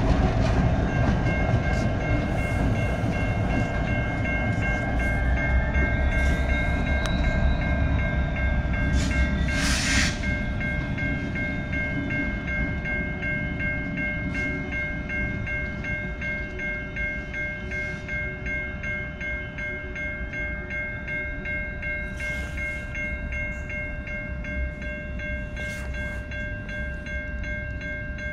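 EMD SD60M and SD70MAC diesel locomotives rumbling as they move away, the engine sound slowly fading. From about a second in, grade-crossing warning bells ring steadily. One sharp noise comes about ten seconds in.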